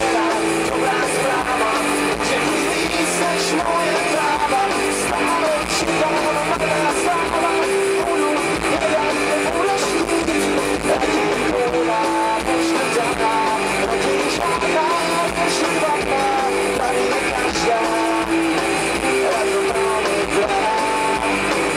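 Live rock band playing on an open-air stage: strummed electric guitars and drums under a male lead vocal, without a break.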